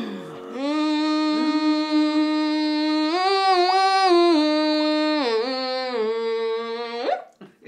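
A young woman singing, holding one long note that steps up about three seconds in, drops lower about five seconds in, and ends with a quick upward slide.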